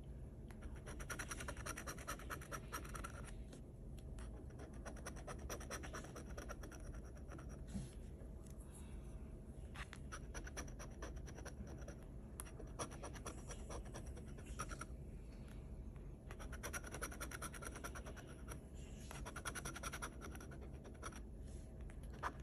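Metal bottle-opener edge scraping the coating off a scratch-off lottery ticket: runs of quick scratching strokes broken by short pauses.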